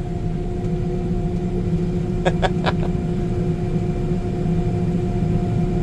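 Farm machinery engine running steadily, a constant low hum with a few steady tones, and three quick clicks about two and a half seconds in.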